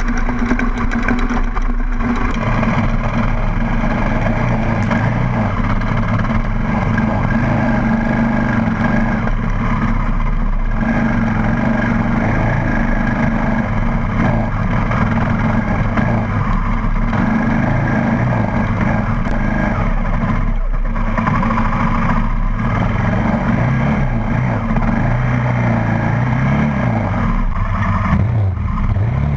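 Off-road vehicle engine running steadily, loud and close, with the engine pitch rising and falling near the end.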